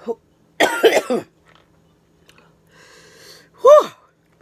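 A woman coughing hard, a quick cluster of coughs about half a second in, then a short voiced grunt rising and falling in pitch near the end, while she eats mussels in very spicy sauce.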